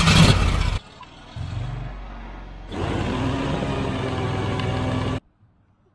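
Air-cooled V-twin engine on a belt conveyor running just after being started: loud at first, dropping back about a second in, then running loud again from about three seconds. It cuts off suddenly about five seconds in.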